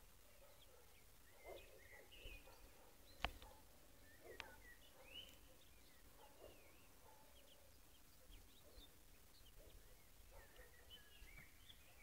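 Faint birdsong in forest: scattered short chirps and whistled calls from several birds, with a sharp click about three seconds in and a weaker one a second later.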